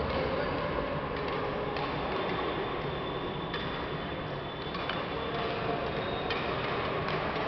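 Badminton rally: sharp ticks of rackets striking the shuttlecock, about one every second, over a steady background noise.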